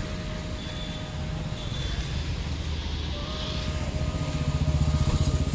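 Motor vehicle engine running, with fast regular pulses that grow louder about four seconds in, under a few long held tones that step in pitch.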